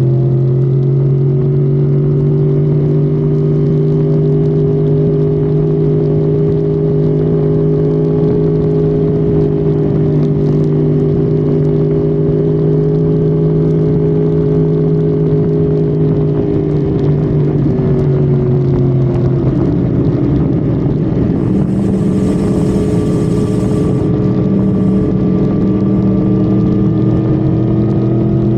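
Honda Civic FD's engine running at high, steady revs at speed, over road and wind noise. About two-thirds of the way through, the revs drop, then climb slowly again.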